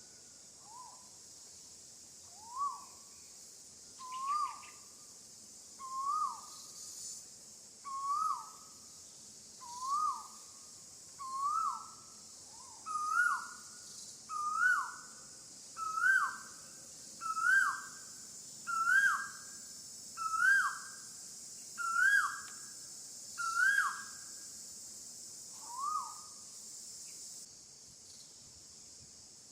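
A bird calling a series of about fourteen short notes, each rising then falling, roughly one every one and a half seconds. The notes grow higher and louder through the series, then tail off. Underneath runs a steady high insect drone that stops near the end.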